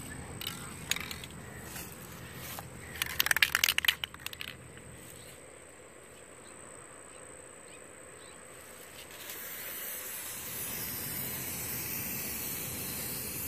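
Aerosol spray-paint can spraying, a steady hiss that starts about nine seconds in and holds. Before it, about three seconds in, comes a brief burst of rattling.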